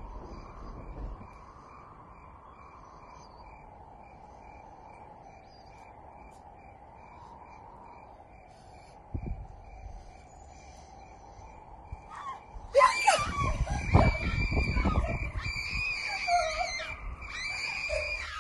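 Quiet, tense film soundtrack: a faint wavering drone with soft steady ticking and a single thud about nine seconds in. About thirteen seconds in it breaks into loud screaming over heavy thuds that lasts to the end.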